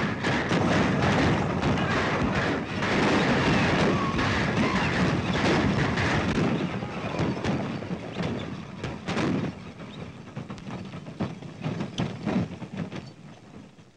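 Galloping horses and rolling wagons with repeated gunshots in a running gunfight, heard on an old film soundtrack. The din is dense at first, then thins over the last several seconds to a few scattered, fainter shots.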